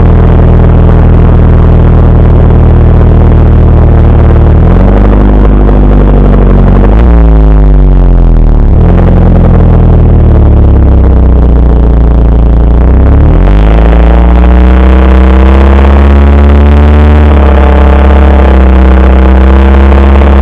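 Exhaust of a Mitsubishi Lancer Evolution Wagon (CT9W) with its turbocharged 4G63 inline-four, the muffler's silencer baffle removed, heard while driving. It runs steadily at first, then accelerates with a rising pitch, drops back at two gear changes in quick succession, and climbs again past the middle before holding steady.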